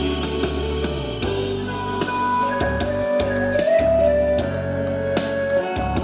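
Korean trot backing track with drum kit, bass and guitar, played through the stage PA speakers. A melody line holds long notes in the middle over a steady beat.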